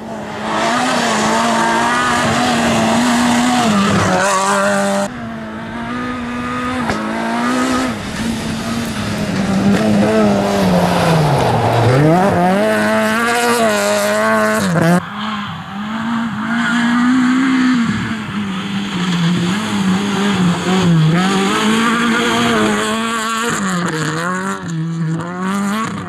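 Rally car on a gravel stage, its engine revving hard, the pitch repeatedly climbing and dropping back as it shifts gear and lifts for corners. The sound jumps abruptly twice as the shots change.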